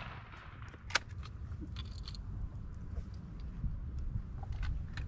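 Steady low rumble of wind on the microphone, with one sharp click about a second in and a few fainter clicks after it.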